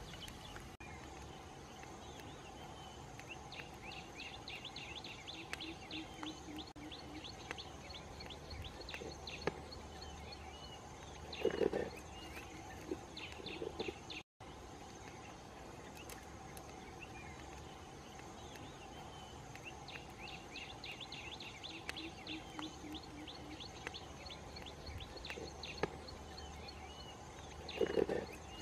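Outdoor wildlife ambience: a steady insect drone with repeated trains of rapid chirping trills. A short, louder low sound comes twice, about twelve seconds in and near the end.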